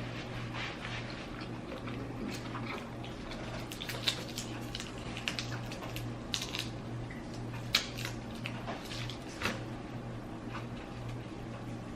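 Close-up eating sounds from a seafood meal: wet chewing and mouth noises broken by several sharp clicks and cracks, the loudest about four, seven and a half and nine and a half seconds in. A low steady hum runs underneath.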